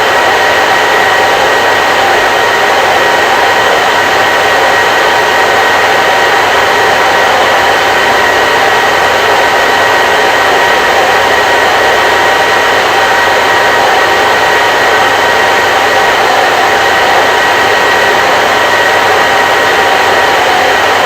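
Hair dryer running steadily: a constant rushing of air with a faint motor whine held at a few steady pitches, unchanging throughout.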